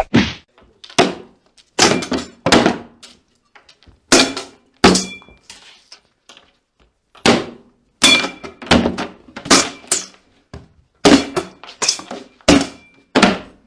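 Jigsaw puzzle pieces being set down and pressed into place: a run of about twenty short, sharp thunks and clicks in an uneven rhythm, with brief gaps around the middle.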